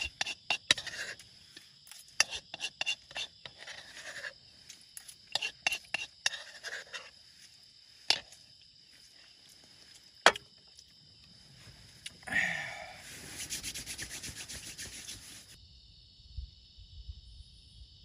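A person handling things at a campsite: repeated rubbing, scraping and sharp clicks, then a longer scratchy rush lasting about three seconds near the end. Insects chirr steadily in the background.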